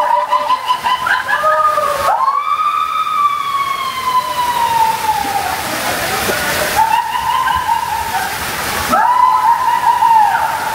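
Riders screaming on a spinning tube water slide over rushing, sloshing water: long high screams, one held for about four seconds with its pitch slowly falling, then two more near the end.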